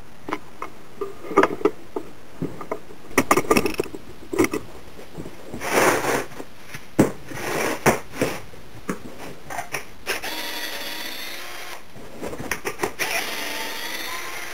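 A wooden canvas stretcher frame being handled on a wooden workbench: irregular knocks and clatter of wood on wood, and a longer scraping squeak about ten seconds in and again near the end as the frame is slid along the bench.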